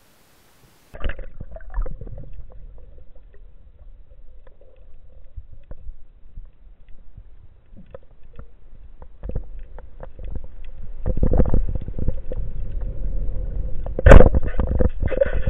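Underwater sound: a low rumble of water and scattered clicks that swells after about ten seconds, then one sharp, loud crack of a wooden speargun firing about fourteen seconds in. The sound starts after about a second of silence.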